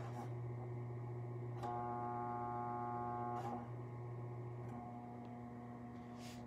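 Wahoo KICKR Headwind fan running at low speed with a steady low hum and buzz, the unwanted vibration noise of its housing. About a second and a half in, a higher whine comes in over the hum and stops about two seconds later, each change marked by a soft click.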